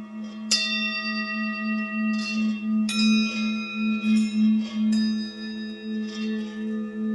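A steady, wavering drone with bell-like notes struck three times over it, each ringing and slowly fading.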